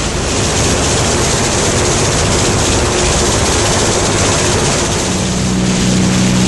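The engines and propellers of a B-25J Mitchell bomber, a pair of Wright R-2600 radials, drone steadily in flight, heard from inside the aircraft under a dense rushing noise. About five seconds in, the low engine hum grows stronger.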